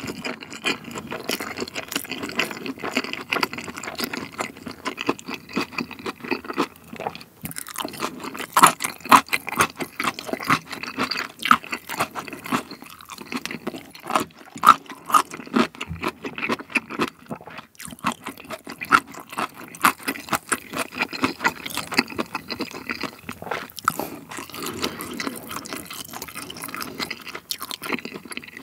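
Close-miked chewing of a mouthful of fried rice, with many small mouth clicks in quick succession.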